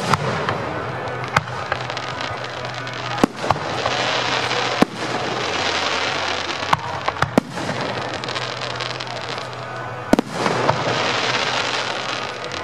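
Aerial firework shells bursting, about ten sharp bangs at uneven intervals, several in quick succession near the middle. A long hissing crackle follows two of the louder bursts.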